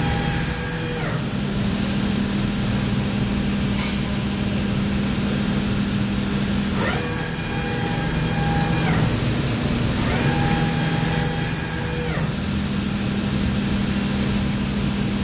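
5-axis CNC milling machine running: a steady hum with a high, constant whine over it. Twice, a motor whine rises in pitch, holds, and falls away again, about seven seconds in and again about ten seconds in.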